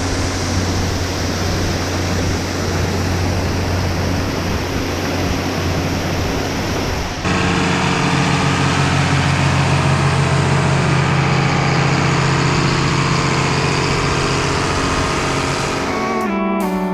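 Large vehicle engine running steadily. About seven seconds in, the sound switches abruptly to a louder, steadier engine drone.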